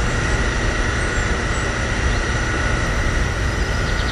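Steady machine hum: a low rumble with two constant high whining tones, and faint rapid ticking coming in near the end.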